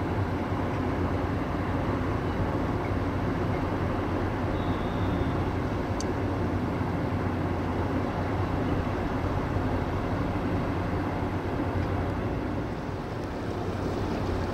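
Steady low drone of a patrol ship's machinery running alongside the quay during mooring, an even hum with a constant low pitch and no change in level.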